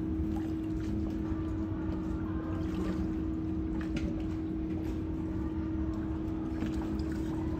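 Steady low drone of moored-boat machinery, such as a yacht's generator, with one constant hum-like tone over a low rumble and a few faint clicks.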